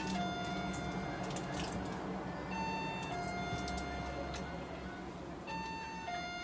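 An electronic tone sounding a falling two-note pattern, a short higher note then a longer lower one, repeating about every three seconds over a low steady hum.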